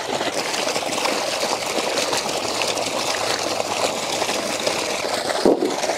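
Water running and splashing steadily as vegetables are washed in it by hand; it stops abruptly about five and a half seconds in.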